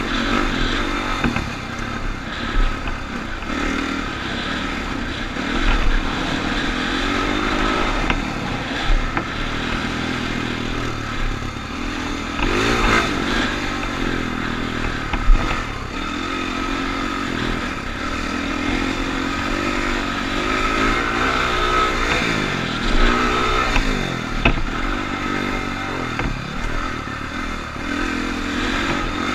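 Dirt bike engine being ridden around a motocross track, heard from on the bike, its pitch rising and falling over and over as the throttle opens and closes, with clattering from the bike. There is one sharp knock about halfway through.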